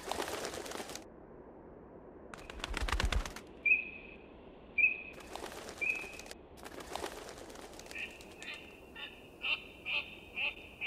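Eurasian teal splashing as they bathe in shallow water, with short high whistled calls. From about eight seconds in, the calls come in a quick series at about two a second.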